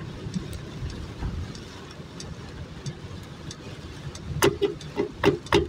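Steady low rumble of a vehicle driving on a wet road in rain, heard from inside the cabin. About five sharp taps come in quick succession near the end.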